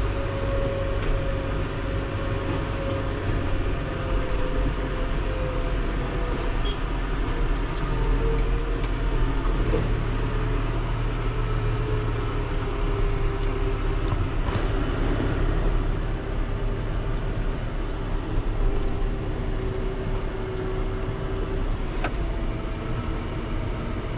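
Tractor engine running steadily while the tractor moves along with a loaded grain trailer, its pitch drifting slowly up and down.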